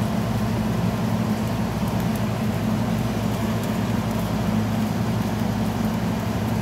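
Window air conditioner running: a steady low hum from its compressor and fan under an even rush of air.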